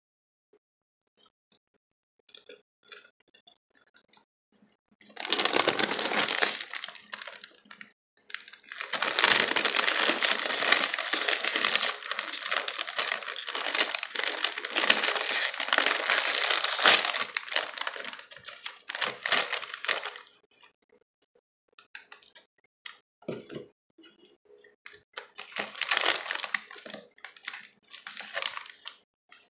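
Crunching of potato chips being eaten and the crinkling of foil snack bags being handled. The loudest, longest stretch runs from about five seconds in to about twenty seconds in, with fainter crackles before it and another burst near the end.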